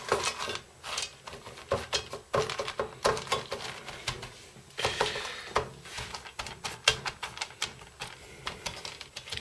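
Damp shelled sunflower kernels being spread by hand across a stainless steel pan: an irregular patter of small clicks and rustles as the kernels slide and tap against the metal, with louder clusters near the start and about five seconds in.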